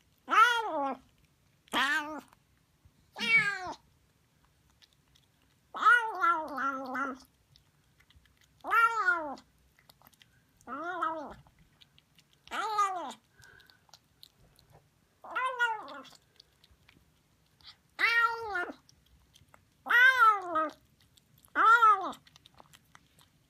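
Siamese kitten meowing while eating: about eleven short calls, each rising then falling in pitch, roughly one every two seconds, one near six seconds in longer and broken in two.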